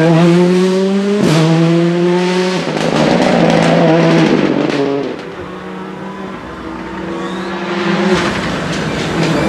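Ford Fiesta R5 rally car's turbocharged four-cylinder engine at full throttle. Its pitch climbs and drops sharply at quick gear changes about a second in and again a second and a half later. The engine then sounds fainter for a few seconds and rises again near the end as the car comes closer.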